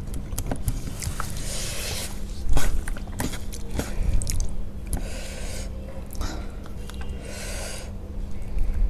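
Close-miked mouth sounds of someone eating rice with curry: steady chewing with wet smacks and clicks, and a few brief hissing sounds.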